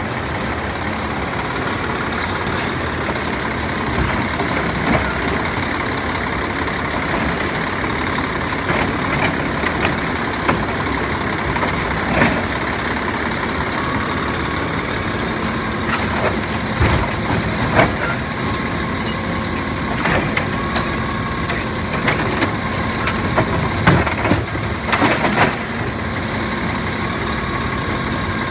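Freightliner M2 garbage truck with a Labrie Automizer side-loader body, running steadily while it stands. A few sharp knocks and clanks come about halfway through, and several more near the end.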